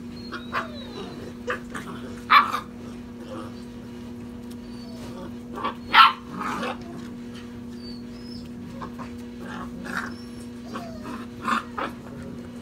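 Basset hound puppies play-fighting, giving short, sharp yips and barks at irregular intervals, the loudest two about two and six seconds in.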